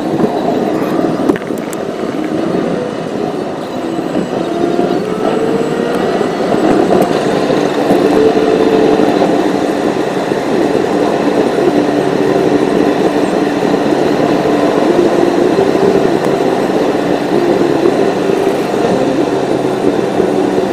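Car driving at road speed, heard from inside the cabin: a steady hum of engine and tyre noise.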